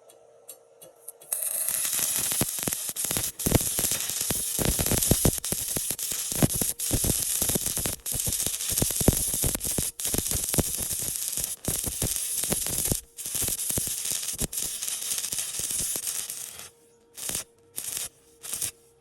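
Stick (shielded metal arc) welding arc crackling steadily while a horizontal fillet weld is run; the arc strikes about a second in, breaks off near the end, then flares for a few short bursts.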